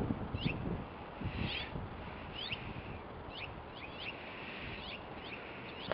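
Birds chirping: many short, high calls, two or three a second, over a steady background hiss.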